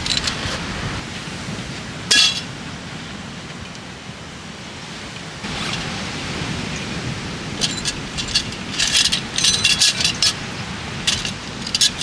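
Steady wind noise, with light clinks and rattles of small hard objects being handled: one sharp click about two seconds in, then quick clusters of clinks through the second half.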